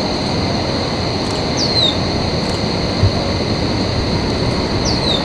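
Jet engines of a Boeing 787 at takeoff power during its takeoff roll, a steady rumble with a high whine. A bird's short, high falling whistle sounds twice over it.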